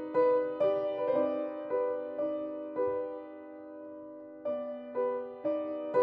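Background music: a soft piano melody, notes struck about twice a second. Near the middle one note is left to fade for over a second before the playing resumes.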